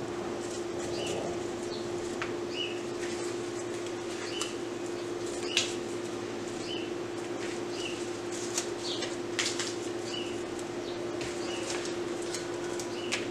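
A bird chirping, short high chirps repeating about once a second, over a steady hum. A few sharp clicks and some rustling come from rose stems and leaves being handled and pushed into floral foam, loudest just past the middle.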